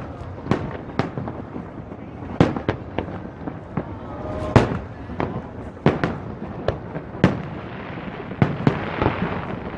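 Aerial fireworks shells bursting over the bay in an irregular string of booms, a dozen or more, each with a short rumbling tail over a steady crackling haze. The loudest burst comes about halfway through.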